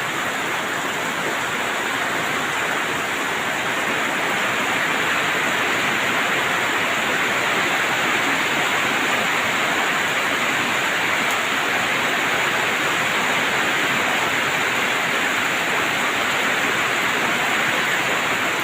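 Rain falling steadily, an even hiss with no separate drops or knocks standing out, a little louder from about four seconds in.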